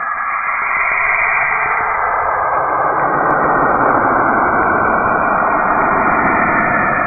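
Saturn's radio emissions converted into sound: a dense, wavering, static-like noise that fills out lower down and grows a little louder over the first few seconds, then holds steady.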